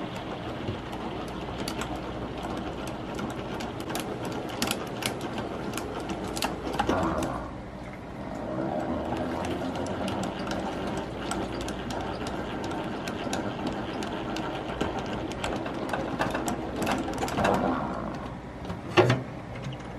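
Hand-cranked two-frame stainless steel honey extractor spinning honey out of uncapped frames: a steady mechanical whirr and rattle with many small ticks. It drops off briefly about a third of the way through, then picks up again. A sharp knock comes near the end.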